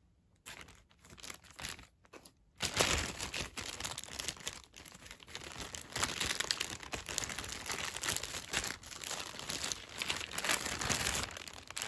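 Clear plastic packaging bag crinkling and rustling as hands handle and unwrap it. A few short rustles come first, then the crinkling runs continuously from about two and a half seconds in.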